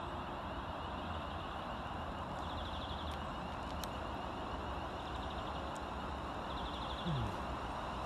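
Class 350 Desiro electric multiple unit running in toward the platform and slowing to stop. It makes a steady low rumble, with a short falling tone about seven seconds in.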